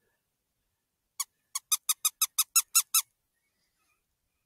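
Predator-call squeaks: about ten short, high, evenly spaced squeaks in quick succession over roughly two seconds, starting about a second in, made to draw in or stop a fox.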